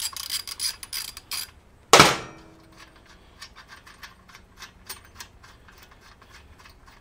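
Ratchet wrench clicking rapidly as it backs out a 12 mm bolt from a motorcycle's front brake drum strut, then a single loud metallic clank with a brief ring about two seconds in. Fainter, slower clicks follow.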